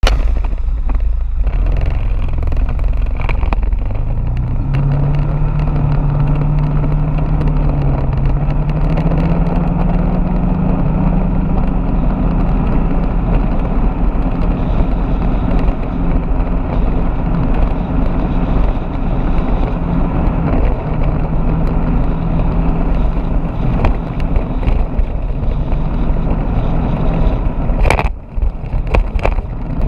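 Motorbike engine pulling away and then cruising at a steady pitch, under heavy wind rumble on the bike-mounted camera's microphone. The engine note drops away briefly near the end, with a few clicks.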